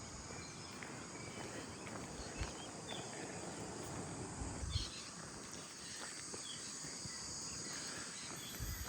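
A steady, high-pitched chorus of insects chirring in the background, with a few brief low thuds.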